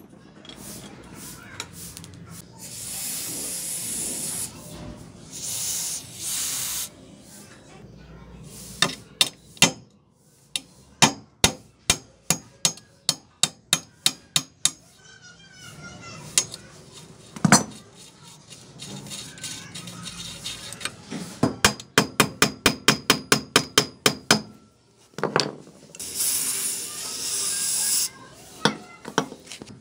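A hammer tapping a nail held as a punch against a rusted bicycle bottom bracket: runs of sharp metal taps, at one point a quick even run of about five a second. Near the end comes a hiss of WD-40 sprayed onto the bracket.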